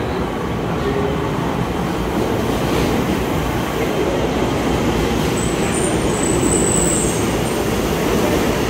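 Docklands Light Railway B2K stock train running into an underground platform and slowing, a steady rumble that grows as it draws alongside. A thin high squeal sounds for about two seconds a little past halfway.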